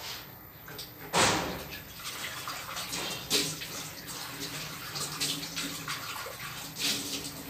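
Pot of chicken soup simmering on a gas stove, the broth bubbling, over a steady low hum. Two louder rushing bursts stand out, about a second in and again a little past three seconds.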